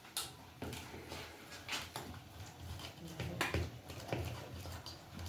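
Gram-flour (besan) batter being mixed by hand in a bowl for aloo chop, with a handful of sharp, short knocks spaced about a second apart.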